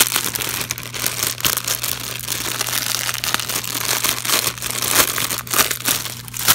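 Clear plastic bag crinkling as it is handled, a dense run of small crackles that goes on throughout.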